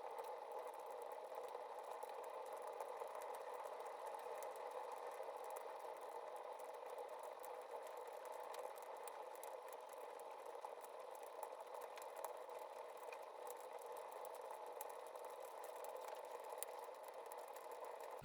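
Wood fire burning in a wood stove: a steady rushing hiss with scattered small crackles and pops.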